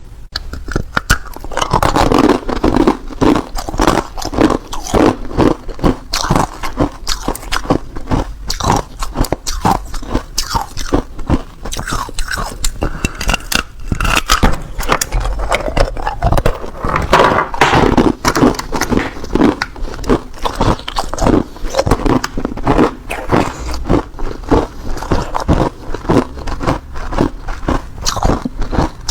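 A person biting and chewing hard ice, a steady run of loud, sharp crunches several times a second.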